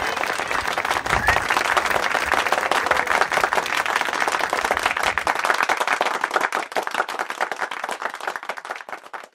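Audience applauding at the end of a song, a dense, steady clapping that tails off near the end.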